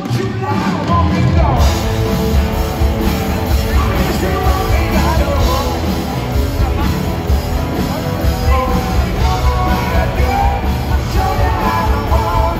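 Live rock band playing loud, recorded from the audience: a male singer over electric guitar and drums, with a heavy low end.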